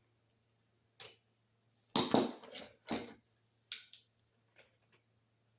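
Sharp clicks and snaps of hand tools working household electrical wire, as the wire loops are opened and the ends stripped. There is a single click about a second in, a louder cluster of snaps around the middle, then a few fainter clicks.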